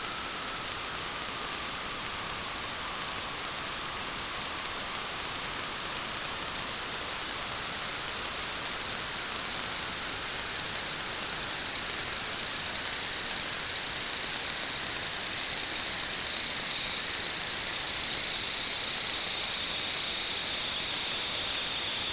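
A steady hiss with a high whistling tone that rises slowly in pitch, and a fainter second tone below it that drifts slowly down.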